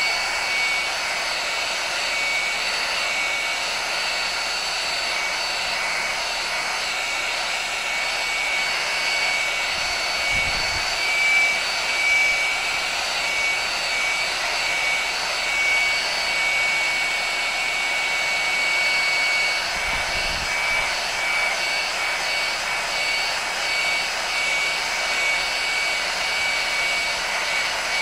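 Heat gun running steadily, a rush of air with a thin high whine from its fan motor, as it blows hot air onto heat shrink tubing to shrink it.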